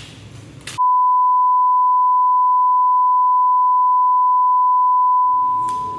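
A steady, loud electronic beep, a pure 1 kHz tone, that starts abruptly under a second in and replaces all other sound for about five seconds, like an edited-in bleep or test tone. A few handling clicks come just before it, and music with a voice fades in under it near the end.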